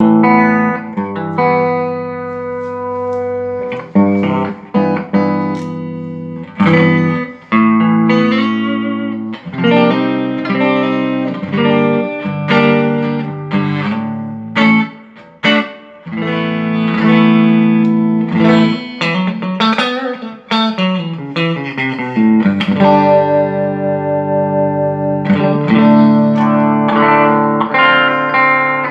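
Electric guitar played through a Mesa Boogie Studio .22+ tube amp, a mix of ringing chords and single-note lines. This is a sound test of the amp after a repair for sound that cut in and out at random.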